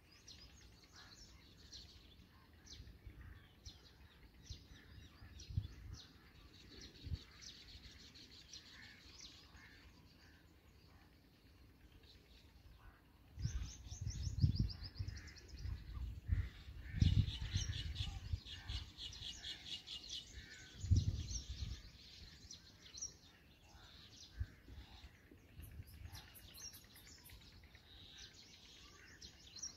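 Black drongos at the nest calling with high chirps, with rapid chattering runs of notes about halfway through. There is a low rumbling underneath at the same time.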